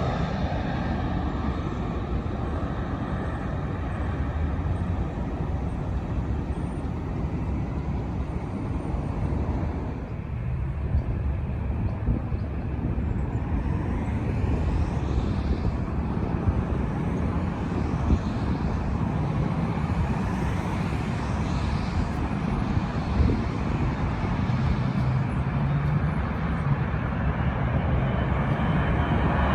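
Steady rumble of road traffic and distant jet aircraft noise near a busy airport, with a few small knocks; the level rises near the end as the next airliner approaches.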